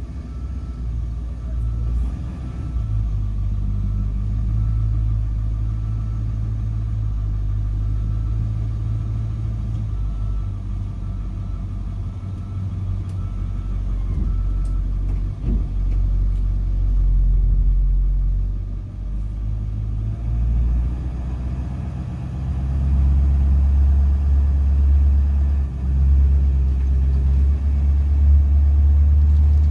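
School bus being driven, its engine and drivetrain a deep, steady rumble inside the cab that swells and eases as it goes.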